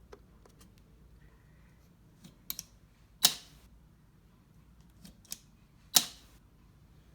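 A few scattered light clicks and taps, with two louder sharp clicks about three seconds in and again near six seconds, like something being handled or pressed at close range.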